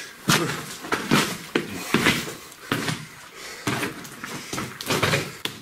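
Footsteps crunching over loose rock and gravel in a mine tunnel, about two steps a second.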